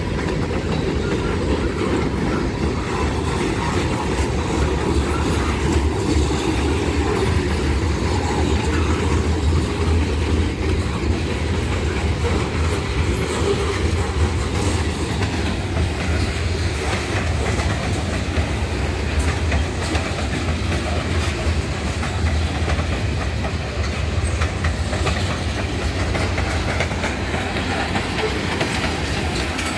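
Freight cars of a mixed freight train (covered hoppers and tank cars) rolling steadily past: a continuous rumble of steel wheels on rail, with a clickety-clack of wheels over rail joints.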